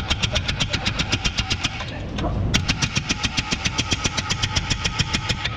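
Rapid hammer blows on a BMW steering knuckle, about eight sharp metal knocks a second, driving the knuckle off the strut. There is a brief lull about two seconds in.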